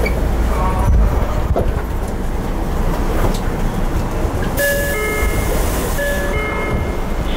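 Inside a Tokyo Metro 02 series subway car with a Toshiba IGBT-VVVF inverter, running with a steady low rumble as it approaches its final stop. A little past halfway a hiss comes in, and several steady whining tones sound together in two short spells.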